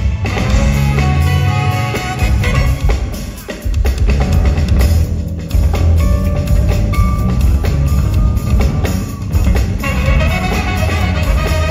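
A live funk band playing loudly: four electric bass guitars playing together over drums and percussion, with a short dip in loudness about three and a half seconds in.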